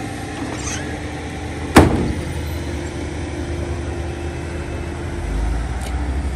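A vehicle engine idling steadily, with one sharp, loud bang about two seconds in.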